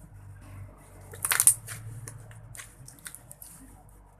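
Hands squeezing and stretching freshly made glossy PVA-glue slime, giving wet crackles and small pops, with the loudest burst of crackling about a second and a half in.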